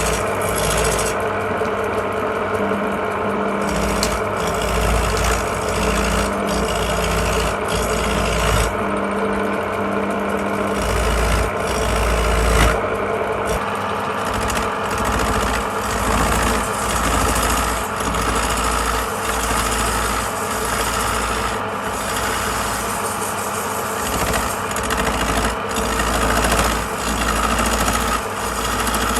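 Wood lathe running, with a turning tool cutting and scraping the spinning wood.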